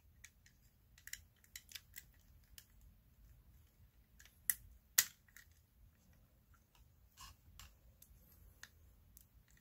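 Faint scattered clicks and taps of plastic and metal parts as a dismantled Westclox electromechanical clock mechanism is handled and pressed together, with two sharper clicks about halfway through.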